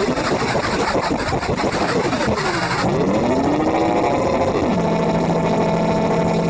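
Eurorack modular synthesizer making noise-music sounds: a dense hissy texture with pitch sweeping up and down. The hiss cuts off suddenly about three seconds in, leaving gliding tones that settle into steady low and mid drones.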